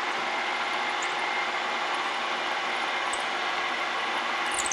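Milling machine spindle running steadily with a 1/4-inch drill bit cutting into a small metal plate, an even whir with a few steady hum tones. A few light clicks come near the end.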